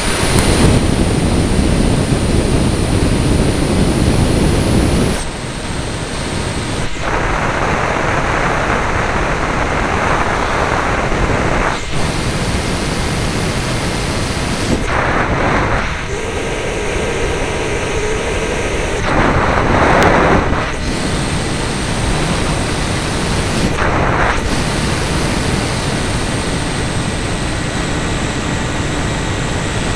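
Onboard-camera audio of a radio-controlled model aircraft in flight: loud rushing wind on the microphone with the motor's steady whine running under it, its tone and loudness shifting every few seconds as the aircraft manoeuvres.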